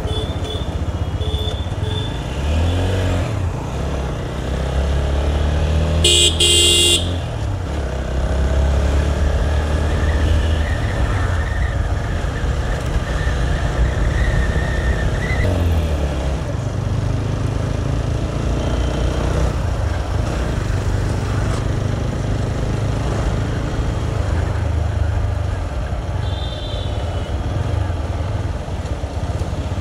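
TVS Apache RTR 160's single-cylinder engine running while riding through traffic, its pitch rising and dropping with throttle and gear changes. A vehicle horn honks briefly about six seconds in, and a fainter horn sounds near the end.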